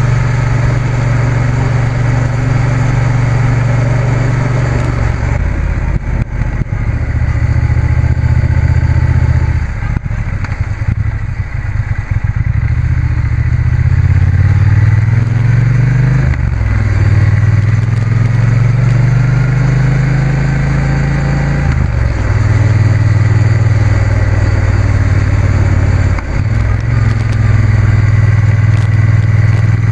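Triumph Bonneville T120 parallel-twin motorcycle engine under way, rising in pitch as it accelerates and dropping back at each gear change. The engine eases off for a couple of seconds about ten seconds in, then pulls up through the gears again.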